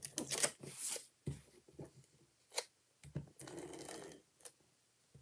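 Faint rustling of paper and cardstock being handled on a craft table, with a single sharp click about two and a half seconds in.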